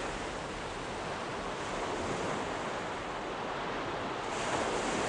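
Seawater rushing and splashing along a sailing ship's wooden hull as it moves through the waves, a steady wash that swells slightly near the end.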